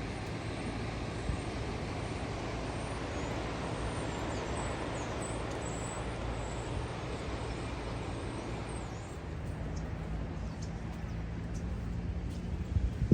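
Steady road traffic noise outdoors, with a low steady hum joining about nine seconds in.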